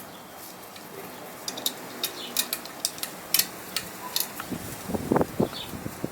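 Light metallic clicks and clinks of bolts and a ball joint being handled and fitted onto a car's A-arm, with a short cluster of duller knocks about five seconds in.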